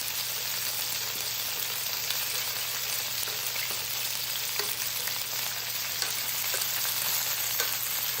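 Cooked potato pieces sizzling steadily in hot oil in a non-stick skillet over medium-high heat as they brown, with a few faint ticks.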